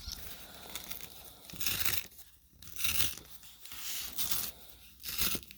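Packaging being torn open by hand, in about four short bursts of tearing and crinkling.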